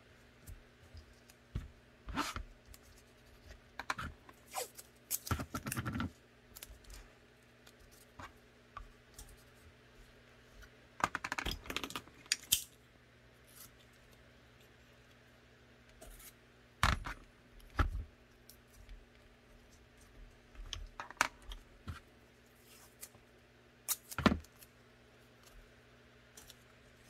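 Scattered handling noises: small clicks, taps and rustling as painter's tape is pressed onto a blue training pistol and small plastic and metal parts are set down on a cutting mat, with short rustling clusters about five and eleven seconds in.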